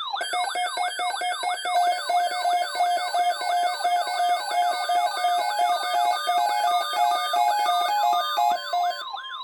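Several electronic alarm tones sounding together: a falling siren sweep about three times a second, a fast high warble, and a stepped beeping tone, all loud and steady until they cut off near the end.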